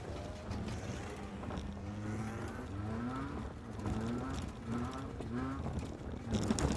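Banger-race car's engine heard from inside the cabin, revved in a series of short rising bursts over a steady low running note. A few sharp knocks near the end.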